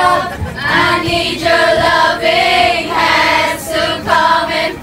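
Several voices singing a melody together, with long held notes.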